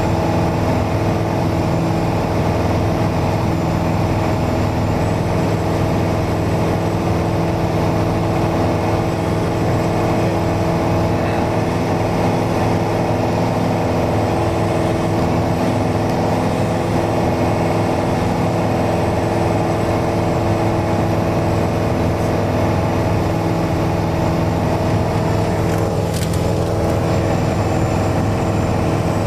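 Mooney single-engine light aircraft's piston engine and propeller droning steadily in flight, heard from inside the cabin.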